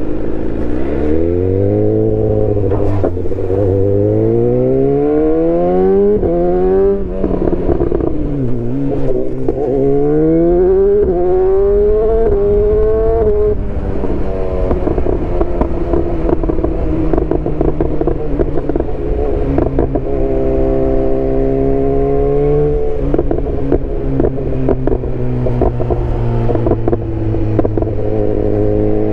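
BMW S1000R's inline-four engine running loud, its pitch climbing steadily over a few seconds and dropping sharply twice, then holding fairly steady with one brief step up and back down.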